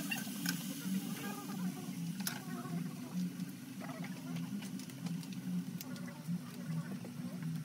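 Metal spatula scraping and clicking against a wok of frying meat, with a faint sizzle, over a steady low hum that pulses a couple of times a second.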